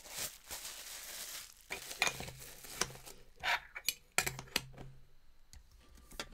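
Metal Funko Soda cans being handled and set down on a table: irregular clinks, knocks and scraping rustles.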